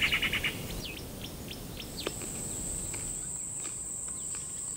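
Insects and birds: a fast pulsing insect trill that stops about half a second in, then a steady high insect whine that starts about two seconds in, with short bird chirps scattered through.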